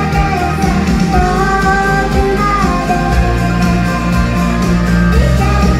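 Live pop-rock song: a woman sings into a microphone while strumming an acoustic guitar, over a steady bass line and drums.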